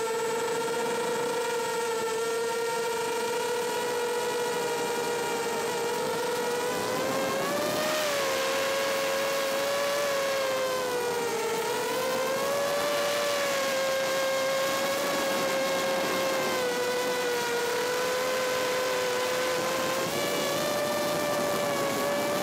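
FPV quadcopter's electric motors and propellers whining steadily, the pitch rising and falling with the throttle as it manoeuvres, several motors at slightly different pitches.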